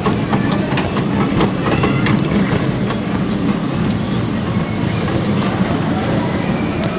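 Busy city street: a steady low hum of traffic and engines, with faint voices of passers-by.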